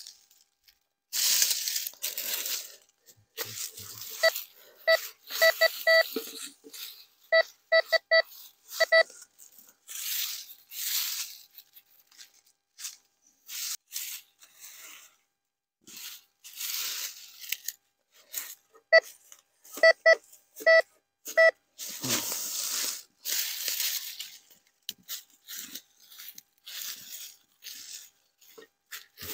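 Dry leaves crunching and rustling as they are swept and raked through, with a metal detector giving clusters of short, repeated beeps.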